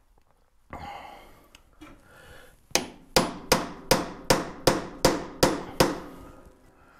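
Hammer driving a cold chisel at the rear wheel hub of a 1914 Studebaker SC-4: nine sharp metal-on-metal strikes, about three a second, beginning a little under three seconds in, each with a short ring. The chisel is breaking free a hub cover that was sealed down with RTV.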